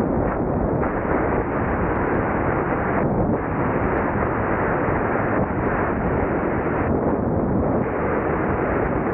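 Wind buffeting the camera's microphone while moving along an open trail: a heavy, continuous rumble with no clear engine tone.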